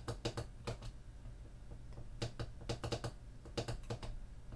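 Small plastic push-button clicks in quick runs of two to five, a Floppy Emu disk emulator's buttons pressed repeatedly to choose the disk to boot from. A low steady hum from the running Macintosh SE/30 lies underneath.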